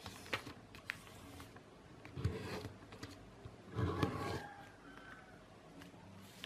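A sheet of A4 paper being folded and creased by hand against a table: paper rustling and scraping, with small ticks and two louder rustles about two and four seconds in.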